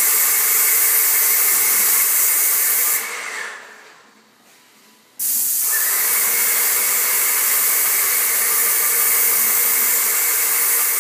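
Paint sprayer hissing steadily while spraying semi-gloss white paint, with a steady whine in it. It stops about three seconds in, fading away over a second or so, and starts again abruptly about two seconds later.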